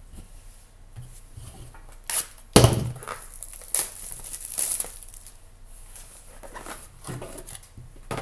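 Trading-card packaging being handled on a table: a click and then a single loud thump about two and a half seconds in, followed by bursts of crinkling from a silver foil-wrapped card pack.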